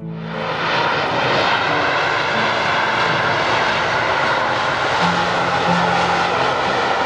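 Fixed-wing aircraft engines running, a loud steady rushing noise that comes in sharply at the start, builds over about a second, then holds.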